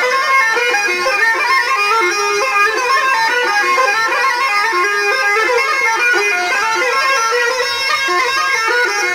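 Arabian folk music led by a reedy wind instrument playing a fast, stepping melody without pause, in the nasal, bagpipe-like tone of a double-reed pipe.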